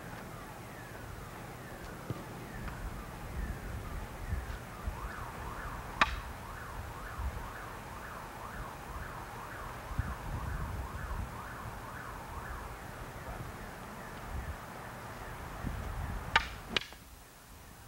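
Wooden jo staffs striking together: one sharp clack about six seconds in and two quick clacks near the end, over a repeating warbling tone, falling and rising a couple of times a second, in the background.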